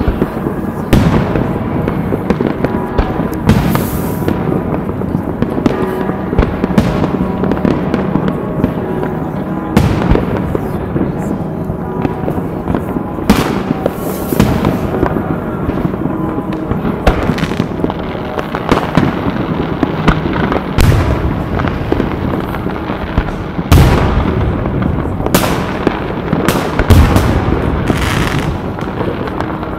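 Fireworks and firecrackers going off continuously: a dense crackle of small bangs with frequent louder booms, several of the loudest in the last few seconds.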